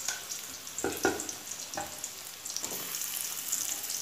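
Potato wedges frying in hot mustard oil in an aluminium karahi, the oil sizzling steadily, with a few soft knocks as more wedges are dropped into the pan.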